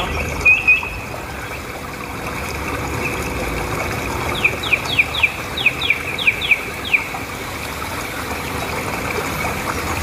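Small sea waves washing onto a sandy beach in a steady rush. Over it, birds give a couple of short calls about half a second in, then a quick run of about eight sharp, falling calls from about four to seven seconds in.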